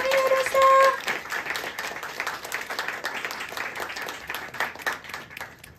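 A singer's held final note ends about a second in, and a small audience applauds, the clapping fading away near the end.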